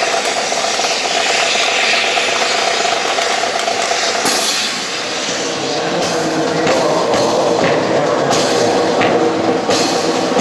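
Drill rifles clacking in a series of sharp knocks in the last few seconds as they are slapped and handled in a rifle drill, over a steady droning hum.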